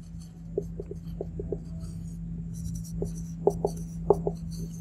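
Marker pen writing on a whiteboard: a run of short squeaks and light ticks as the letters are drawn, busiest about three to four seconds in, over a steady low hum.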